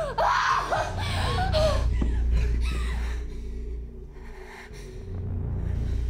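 A woman gasping and crying out, her voice bending up and down for about two seconds, then short, ragged breaths. A low, steady music drone underneath.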